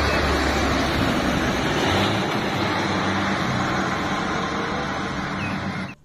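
Heavy low-loader truck carrying an excavator driving along a road: steady diesel engine and tyre noise, easing off a little near the end before cutting off.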